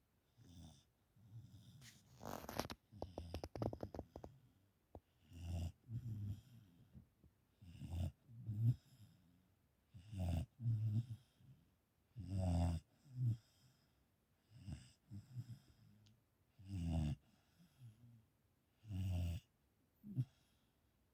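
A sleeping dog snoring: a low, rattling snore on each breath, coming every one to two seconds, with a long fluttering rattle a few seconds in.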